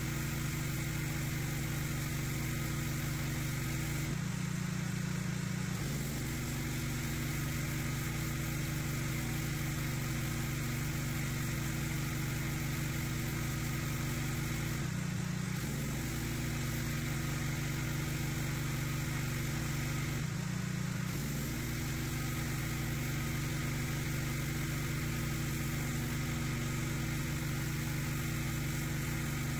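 Pressure washer running steadily, its motor and pump humming under the hiss of the high-pressure jet spraying onto a concrete path. Three times, about four, fifteen and twenty seconds in, the hiss dips briefly and the machine's note shifts, as when the lance trigger is let go.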